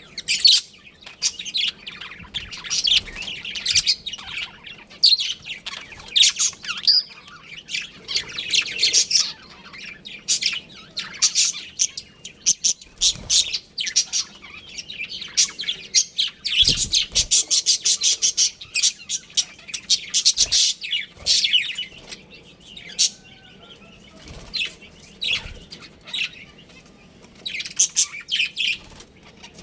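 Budgerigars chirping and chattering in rapid, overlapping bouts of high chirps, with a few soft thumps.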